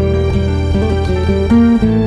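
Background music led by guitar: plucked and strummed notes over a steady bass line.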